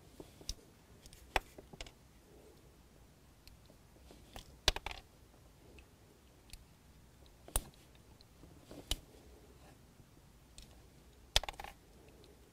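Red plastic shipping plugs being prised out of the hose ports of a Chrysler Crossfire convertible-top hydraulic pump's aluminum block with a screwdriver, giving irregular sharp clicks and pops. The loudest come a little before halfway and near the end.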